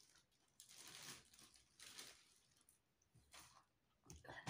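Faint rustling and handling noises: a few short, soft swishes spaced about a second apart, with near silence between them.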